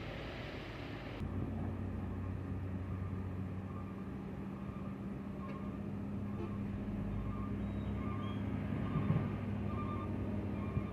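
Heavy construction machinery engine running steadily at a low drone, with faint short beeps repeating at an even pace.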